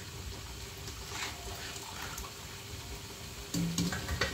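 Low steady hiss of soup cooking in a pot on a gas stove, with a few faint clinks. Near the end come a brief low voice sound and a click.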